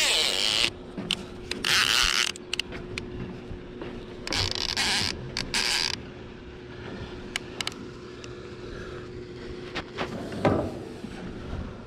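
Fishing reel's drag giving line in several short bursts in the first six seconds, with creaking and clicking from the reel, as a big hooked carp pulls against it.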